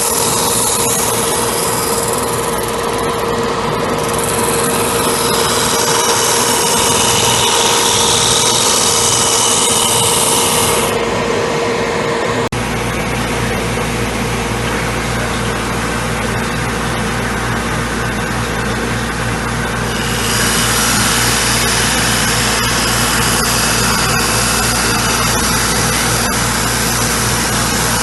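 Homemade drum sander running and sanding wood, a steady machine noise with a sustained tone. About twelve seconds in the sound changes abruptly: the tone stops and a deeper hum takes over.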